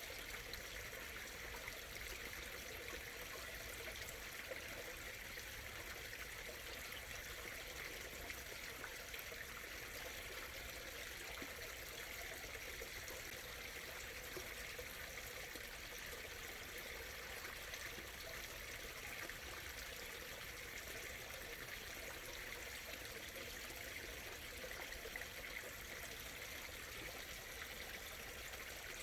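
A small stream murmuring and trickling steadily, an even, unbroken flow of water with a brighter hiss in the upper range.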